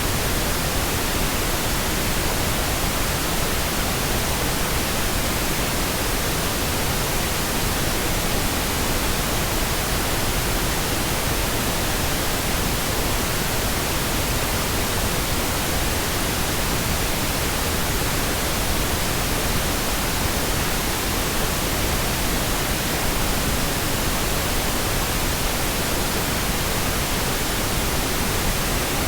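Pink noise: a steady, even hiss spread across the whole range of pitch, without change.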